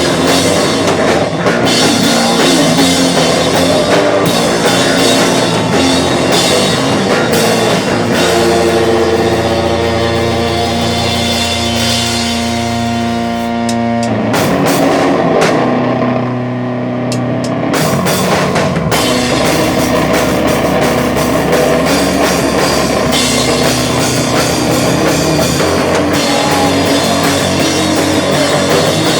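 Rock band playing live: electric guitars and a drum kit at full volume. About eight seconds in, a chord is held and rings for several seconds. Then the high end drops away for a few seconds before the full band comes back in, about nineteen seconds in.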